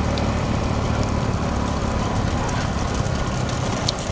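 A motor vehicle's engine running steadily, with a low hum and road or wind noise.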